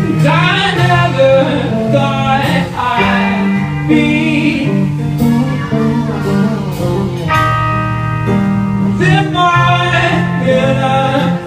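Live psychedelic rock band playing: electric guitar lines over a bass line that changes note every second or so, with cymbal hits.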